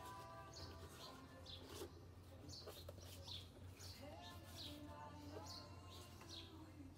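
Small birds chirping faintly: short falling chirps, often in pairs, at about two a second, over a faint low steady hum.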